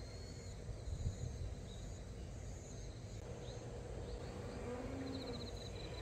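Insects, crickets among them, chirping in repeated short high trills over steady low background noise.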